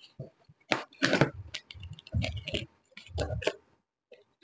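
Hands opening a cardboard shipping carton: irregular scrapes, rustles and clicks of the cardboard flaps and packing tape, with a few fuller knocks about a second apart.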